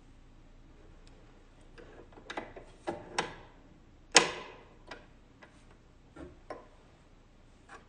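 Small clicks and short scrapes of hands threading the needle of a Singer sewing machine, irregular, with the sharpest click about four seconds in.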